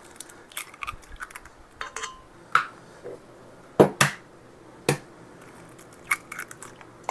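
Eggs being cracked and emptied into a stand mixer's steel bowl: a scattered run of short sharp clicks and taps of shell, the loudest a quick pair about four seconds in.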